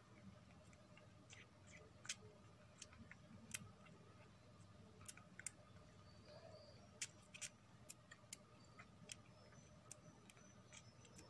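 Faint, irregular small clicks of a newborn kitten suckling milk from a feeding syringe.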